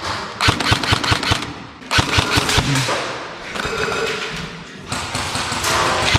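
Airsoft rifle firing rapid strings of shots, several quick clicks a second, in two bursts early on and another starting near the end.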